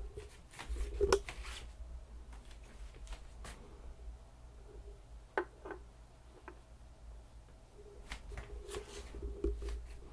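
Handling noises at a turntable: a few light clicks, knocks and rustles as a vinyl record and a record weight are set onto the platter, over a low steady hum.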